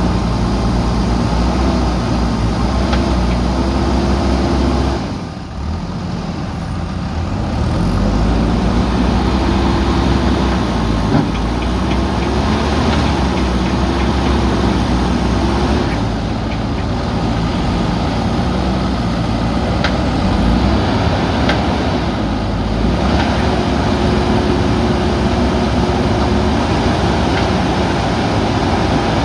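Diesel engines of JCB backhoe loaders working under load, the engine note rising and falling as the machines rev, with a brief drop about five seconds in.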